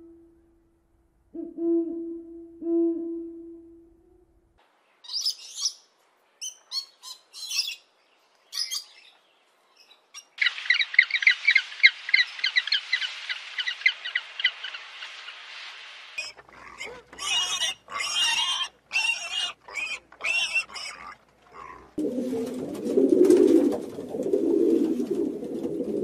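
A string of bird calls. First come a few low owl hoots, then scattered high chirps and a dense stretch of high chattering. Near the end there is a lower, warbling cooing.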